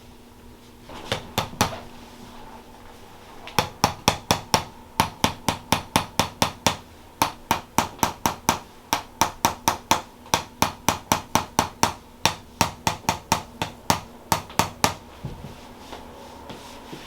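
A rapid series of sharp taps or clicks, about four a second: three a little after a second in, then a long run from about three and a half seconds in until near the end, with a few short breaks.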